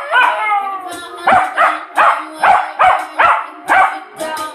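Jack Russell terrier howling along to a pop song: one gliding howl in the first second, then a quick run of short yipping cries, about three or four a second, with the music playing underneath.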